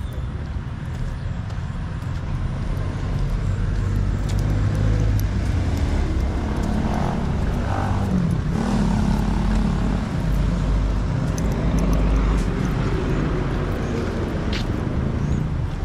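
Road traffic: motor vehicles running and passing on the street, a steady low rumble that grows louder through the middle.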